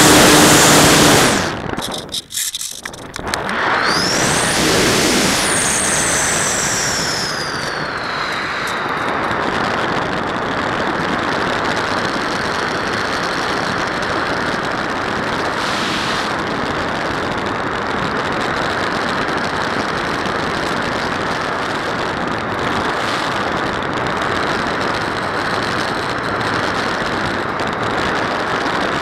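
Onboard sound from an electric Multiplex Panda Sport RC plane in flight. In the first several seconds the motor's high whine glides up and then falls away in pitch. After that comes a steady rush of airflow and motor noise over the camera microphone.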